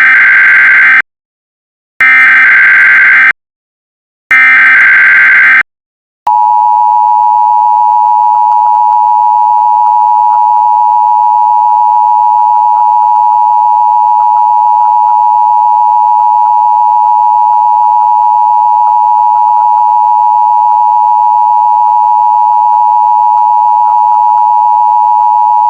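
Emergency Alert System tones: three short bursts of the SAME digital header, a warbling data screech about a second long each and about a second apart, then, about six seconds in, the steady two-tone EAS attention signal (853 and 960 Hz together) held without a break for about twenty seconds.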